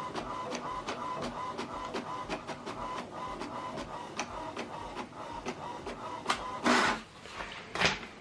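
HP DeskJet 3700-series inkjet printer printing the second side of a manual double-sided job: rapid, regular ticking of about four or five clicks a second over a faint steady hum, with two louder rushing sounds near the end.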